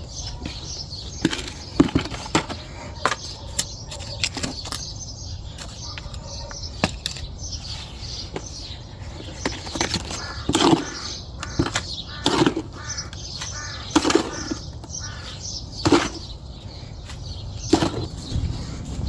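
Wet cement mix being scraped and packed around a post footing with a hand tool: short sharp scrapes and knocks, with heavier strokes coming about every two seconds in the second half.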